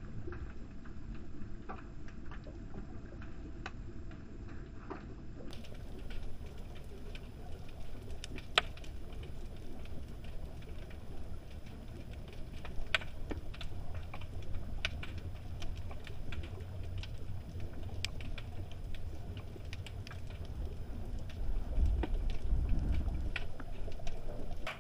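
Underwater ambience picked up by a submerged camera: a steady low rumble with scattered sharp clicks and ticks, the rumble swelling louder near the end.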